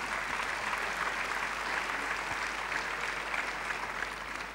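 Large audience applauding: a dense, steady clapping that swells and then fades away near the end.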